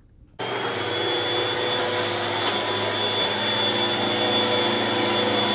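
Upright vacuum cleaner running steadily, with a steady motor whine over a rushing noise. It starts abruptly about half a second in.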